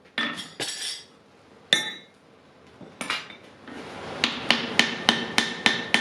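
Blacksmith's hand hammer striking on an anvil while forging a wrought-iron and steel axe. There are a few scattered ringing blows and a pause, then from about four seconds in a steady run of about three blows a second.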